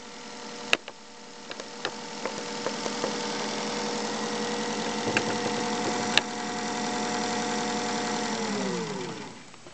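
Singer 201 Centennial sewing machine running at a steady speed with a few sharp clicks, then slowing with a falling whine and stopping about nine seconds in.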